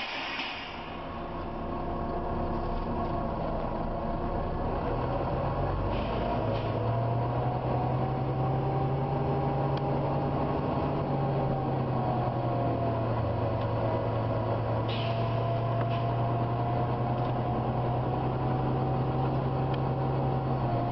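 Volvo B9TL double-decker bus heard from inside, running with a steady low drone and a high whine that drifts slightly up and down, which the uploader puts down to the cooling fan's 'hoover' noise. Short hisses of air come through about six seconds in and again near fifteen seconds.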